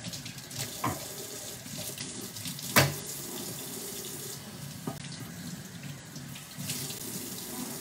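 Kitchen faucet running steadily into a sink while a wooden cutting board is rinsed under it, with a few knocks of the board against the sink, the loudest about three seconds in.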